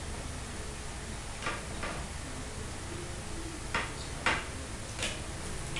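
Eating sounds: about five short, crisp clicks and crunches scattered over a few seconds, as crispy fried pork knuckle and fried spring rolls are handled and bitten by hand, over a low steady hum.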